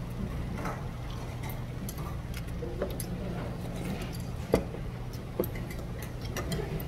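Metal spoon and chopsticks clicking against rice and soup bowls while eating: scattered light clicks, the sharpest about four and a half seconds in, over a steady low hum.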